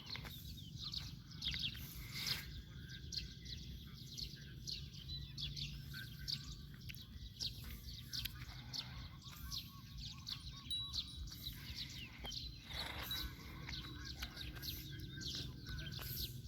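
Birds chirping, with many short high calls scattered throughout, fairly faint.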